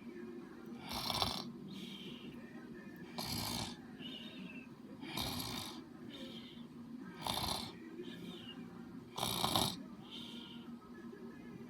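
Loud snoring: a rough, noisy snore about every two seconds, five in all, each followed by a short, softer, higher hiss of breath.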